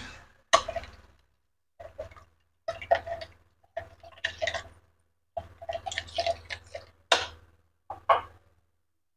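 Coconut-milk broth simmering in a wok of tempeh gembus and vegetables, bubbling and popping in irregular bursts, with sharper pops about half a second in and again near the end.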